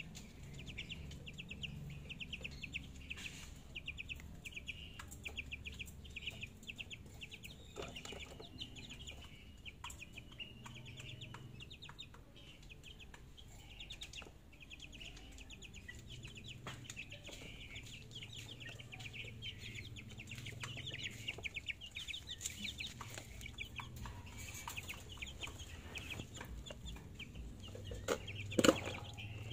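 One-month-old chicks in a wire cage peeping and clucking, a steady run of rapid high calls. Near the end there is a single loud knock as the cage is handled.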